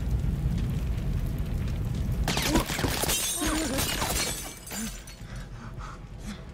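A low rumble, then glass shattering about two seconds in, with shards tinkling down for a couple of seconds before it quietens.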